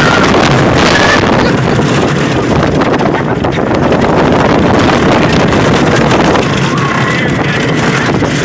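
Heavy wind buffeting the microphone over the rumble of a roller coaster train running along its track at speed.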